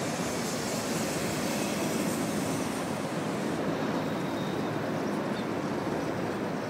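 Formation of military aircraft flying overhead, a steady rushing engine noise; the high hiss thins a little about three and a half seconds in.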